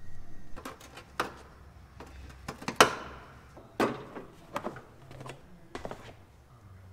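Irregular clicks and knocks of hand tools and parts being handled, about a dozen in all, with two louder sharp knocks near the middle.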